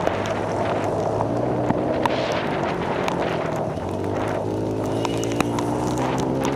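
Several small pit bike engines running at once in a race, revving up and down as they pass, their pitches overlapping.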